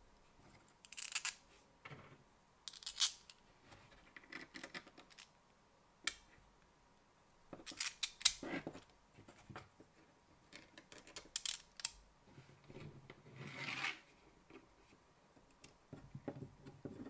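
3D-printed PLA plastic parts being handled and fitted together by hand: scattered light clicks, taps and plastic-on-plastic rubbing, busiest about eight seconds in, with a longer scrape near fourteen seconds.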